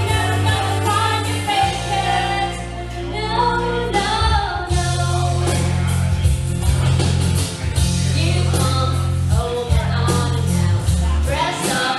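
A woman singing into a microphone over loud backing music with a steady bass line, karaoke style.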